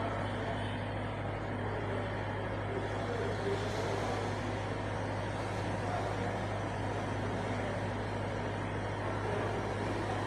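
Steady low machine hum under an even background hiss, unchanging throughout, with no distinct snips or knocks standing out.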